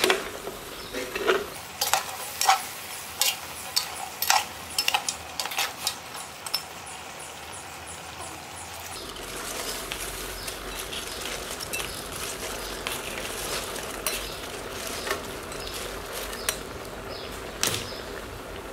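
Metal ladle stirring a stew of meat and vegetables in a large metal pot over a fire, clinking and scraping against the pot in sharp irregular knocks, over a faint steady sizzle. The knocks thin out in the second half.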